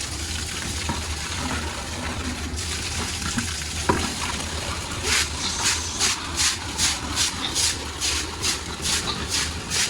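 Pig-barn floor being cleaned: a steady hiss over a low hum, and from about halfway a fast run of scraping or brushing strokes, about three to four a second.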